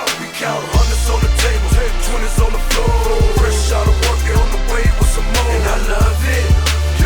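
A hip hop goal song with a heavy bass beat and a vocal line over it. The bass drops out for a moment and comes back in under a second in.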